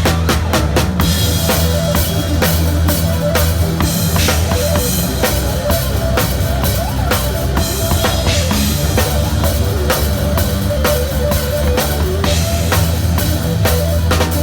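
Drum kit played live in a band groove: dense kick, snare and cymbal strikes over sustained low bass notes, with no break.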